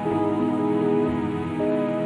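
Instrumental background music with sustained, held notes that shift chord shortly after the start and again near the end.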